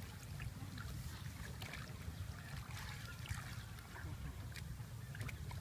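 Muddy water splashing and sloshing as hands grope through a shallow ditch, with scattered small splashes over a steady low rumble.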